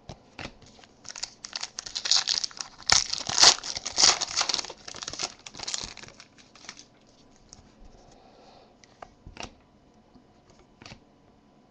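Trading card pack wrapper being torn open and crinkled by hand. The crackling is dense for a few seconds, loudest in the middle, then gives way to a few scattered light clicks as the cards are handled.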